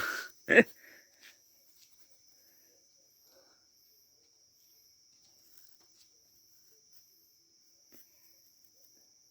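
Crickets trilling in a steady, high, continuous tone, with one sharp knock about half a second in.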